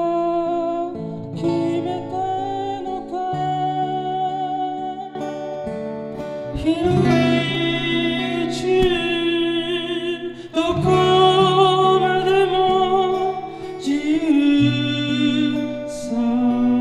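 A man singing and playing a steel-string acoustic guitar. It is heard first as picked up by a TASCAM DR-40 handheld recorder, then partway through as a mix of the camera microphone, the direct line feed and the recorder, which sounds fuller and clearer.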